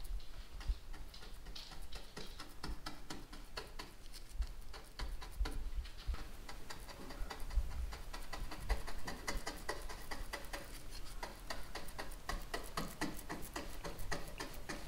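A bristle brush working wet epoxy along the wooden edge of a boat hull: a fast, uneven run of light scratchy ticks as the bristles stroke and dab.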